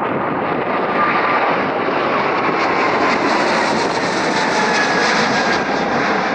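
Twin jet engines of a Boeing 777 at takeoff power as it climbs out: a steady jet roar with faint tones that slowly slide down in pitch.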